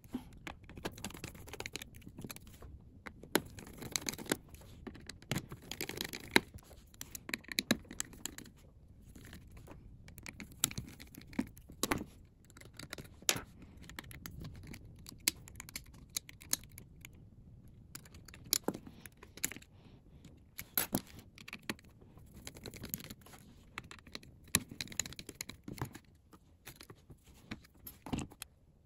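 Precision screwdriver and fingers clicking and scratching on the tiny screws and metal cover plates over a Samsung Galaxy Z Fold 3's hinge, as the plates are unscrewed and lifted off. The clicks and scrapes are short and irregular.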